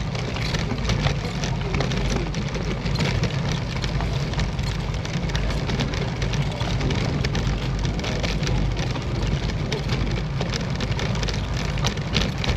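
Road bicycle riding at speed: steady wind rumble on the camera microphone and tyre noise, with a dense, continuous crackling rattle.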